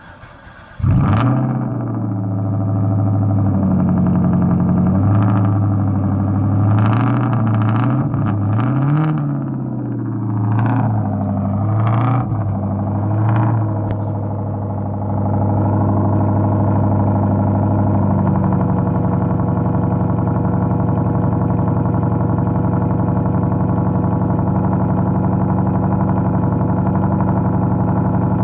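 2004 Ford Mustang GT V8 cold-starting: a brief crank, then it catches under a second in with a loud flare. It is blipped up and down several times in the first half, then settles into a steady idle.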